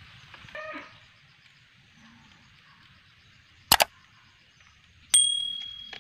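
Subscribe-button sound effect: a sharp double mouse click, then about a second and a half later a bright bell ding that rings and fades over about a second. Just before, a short animal call rises out of a faint steady outdoor hiss.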